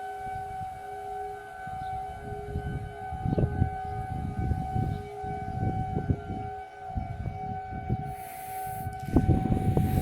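Outdoor tornado warning sirens sounding a steady, unwavering tone during a routine monthly test. Irregular low rumbles on the microphone run underneath from shortly after the start.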